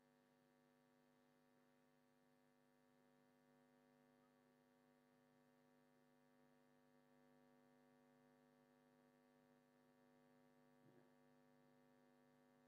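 Near silence, with only a faint steady electrical hum in the recording.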